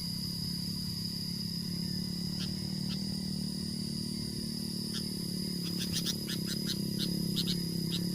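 Short, sharp bird calls, a few at first and then a rapid series of them about six seconds in, over a steady high-pitched insect drone and a low hum.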